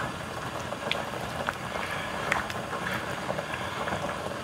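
Spicy tteokbokki sauce simmering in a wok over a portable gas burner, a wooden spoon stirring and scraping through it. A steady hiss with scattered small pops and ticks.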